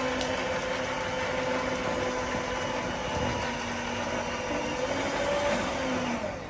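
Electric kitchen mixer motor running steadily with a constant hum, mixing pancake batter.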